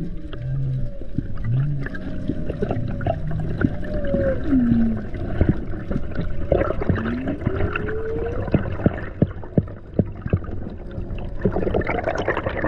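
Humpback whale song heard underwater: long calls that glide up and down in pitch over a low rumble, with many sharp clicks through it and a rush of hissing noise near the end.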